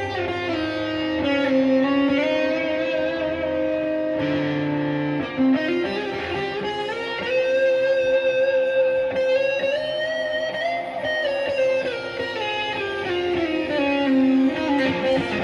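Electric guitar music: sustained notes in a slow melodic line, gliding up and down in pitch with long slides and bends, over a low bass part.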